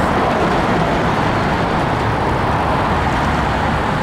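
Steady noise of car traffic passing on a busy road alongside a moving bicycle, mixed with wind buffeting the microphone.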